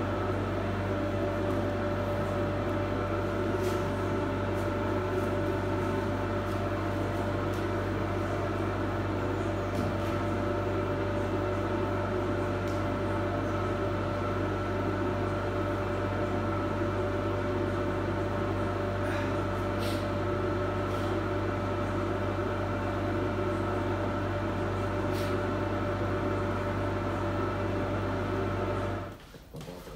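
Workshop dust extractor running with a steady hum, with a few faint clicks and taps over it; the noise cuts off abruptly near the end.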